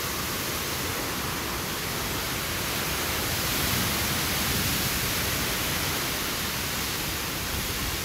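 Heavy rain pouring in a windstorm: a steady, even rushing hiss that swells slightly midway.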